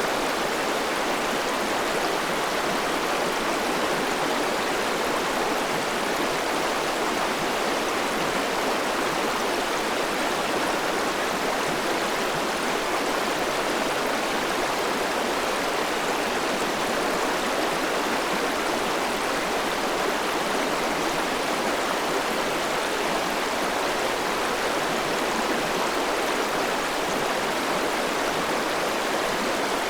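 River water flowing, a steady, even rush that does not change.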